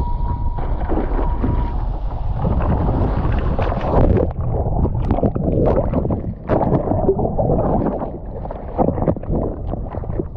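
Wind buffeting an action camera's microphone and water rushing past while riding a wing foil board. About four seconds in it turns to muffled, irregular splashing and underwater churning as the rider falls in and the camera goes under.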